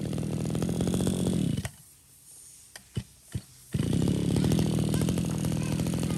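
Small two-stroke brush cutter engine, a Mitsubishi TL26, running steadily at idle. About a second and a half in the sound drops out suddenly, with a few light clicks in the quiet. Just before four seconds the engine is running again at the same steady idle.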